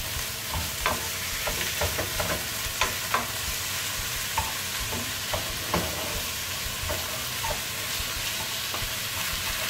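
Raw minced beef sizzling in hot oil in a frying pan as it is stirred with a wooden spatula, the early browning stage. The spatula scrapes and taps against the pan at irregular moments over a steady sizzle.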